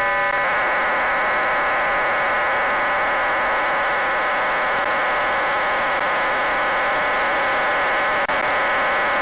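Cuban numbers station on 11530 kHz shortwave sending a digital data burst: a steady buzz of many parallel tones, settling in about half a second in after a short tone preamble.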